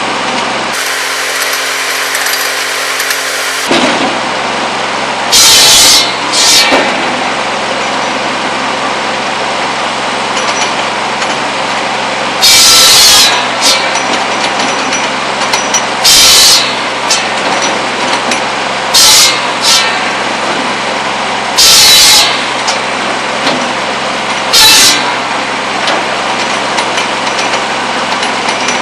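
Buzz saw (cordwood saw) running steadily off a Kubota B7100 tractor, its circular blade biting through pole wood in short, loud rasping cuts, about eight of them a few seconds apart.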